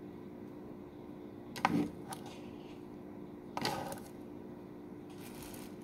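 A kitchen knife knocking on a wooden cutting board while slicing tomatoes: two sharp knocks about two seconds apart, with a lighter tap just after the first, over a faint steady hum.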